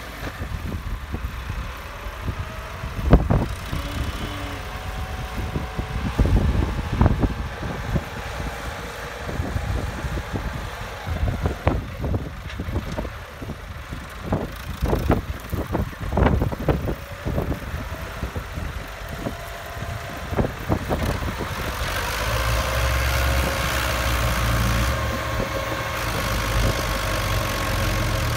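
Diesel farm tractor engines running under load as one tractor tows another that is hauling a loaded trailer, with irregular sharp thumps through the first two-thirds. About two-thirds of the way in, the engine note steadies and grows louder and deeper.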